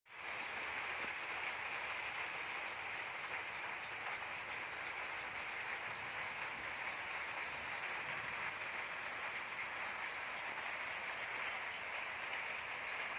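A steady, even hiss that stays at the same level throughout, without distinct events and weighted toward the higher, hissy range.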